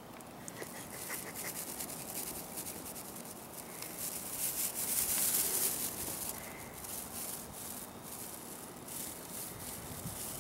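Rustling and scratching made of many quick strokes, growing louder about four to six seconds in, then easing off.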